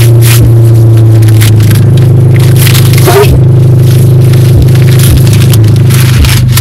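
Brown kraft paper wrapping rustling, crackling and tearing as a wrapped canvas is pulled open. Under it runs a steady low hum that shifts up in pitch about a second and a half in.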